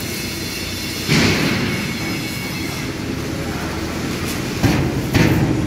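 CAT forklift running close by in a large metal hall: a steady low engine hum, with three loud hissing bursts that fade over about a second, one about a second in and two near the end.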